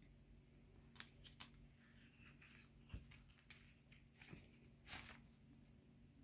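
Paper scratch-off lottery tickets handled on a table: a few faint rustles, scrapes and taps, the sharpest click about a second in, over a faint steady hum.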